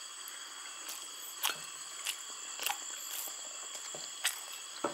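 Someone eating: a few soft clicks and chewing smacks spaced a second or so apart, over the steady high chirring of night insects such as crickets.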